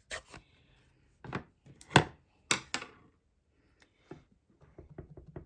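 Stamping supplies being handled: sharp plastic clicks and taps as an ink pad case is opened and a stamp is inked on the pad. The loudest click comes about two seconds in, with lighter quick ticks near the end.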